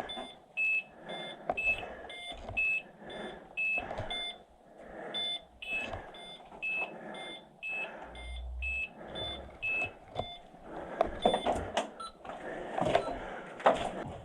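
Electronic airsoft bomb prop beeping about twice a second, alternating between a higher and a lower tone. The beeping stops about ten seconds in, and a few sharp clicks and knocks follow.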